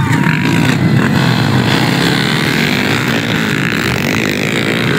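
Four-valve, four-stroke underbone motorcycle engines revving hard in a dirt-track race, their pitch rising and falling as the riders work the throttle.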